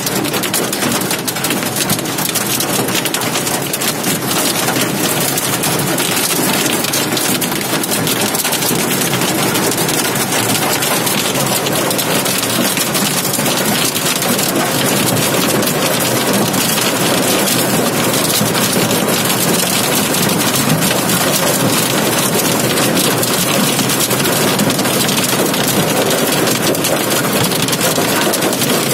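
Heavy rain beating on a vehicle's roof and windscreen, heard from inside the cab as a loud, steady, dense patter.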